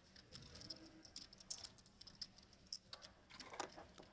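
Faint, irregular clicking of poker chips being fingered and shuffled in a player's hand at the table.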